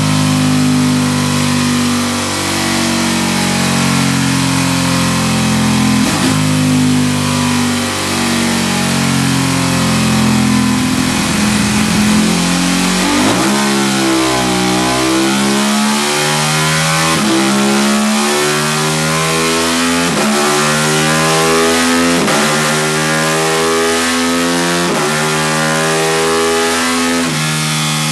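Ducati 1299 Panigale's 1285 cc L-twin engine running hard on a dyno rolling road, with its pitch jumping in steps every second or two as it is shifted through the gears. The quickshifter cuts in on upshifts and the auto-blipper blips the throttle on downshifts.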